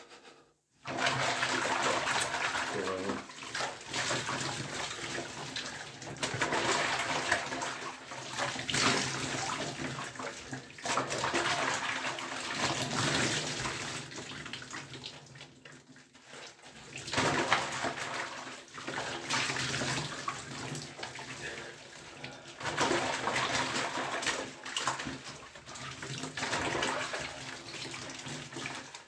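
Water running and splashing while a person washes and scrubs lathered skin and hair with a sponge. It comes and goes in rushing stretches, dropping away briefly about a second in and again midway.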